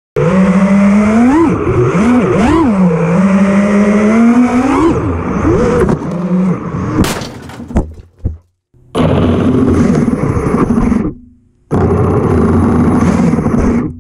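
FPV racing quadcopter's brushless motors and propellers whining, the pitch rising and falling with the throttle, then a sharp crack about seven seconds in as the quad crashes. The motors then run in two steady bursts of about two seconds each, each cutting off abruptly.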